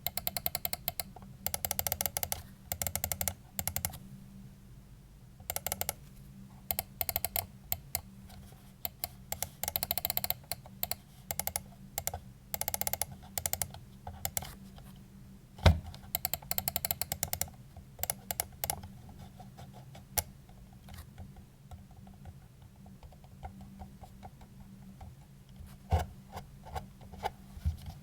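VAXEE Zygen NP-01 gaming mouse being clicked in quick bursts of many sharp clicks with short pauses between them, plus two louder single knocks, one about halfway through and one near the end. A steady low hum runs underneath.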